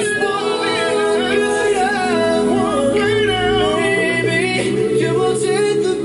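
An a cappella pop song with several voices singing layered harmonies, played back through Creative Pebble Plus 2.1 desktop speakers.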